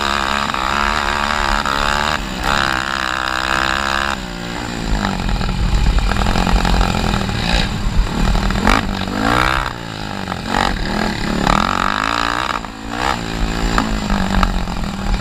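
Honda 300EX quad's single-cylinder four-stroke engine racing under hard throttle, its pitch rising and falling over and over as the rider accelerates, shifts and backs off. It lets off briefly three times: about four seconds in, near the middle, and shortly before the end.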